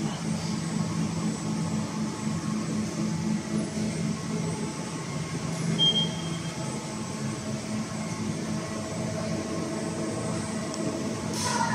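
Steady hum of factory machinery, with a brief high beep about six seconds in and a few clicks near the end.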